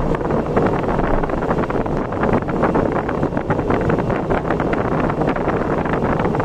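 Wind buffeting the microphone over a steady rush of road and engine noise from a vehicle travelling at speed.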